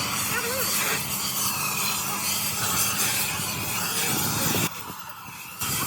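Steady hissing metalworking noise from machine work on a crankshaft. It drops away for about a second near the end, then comes back.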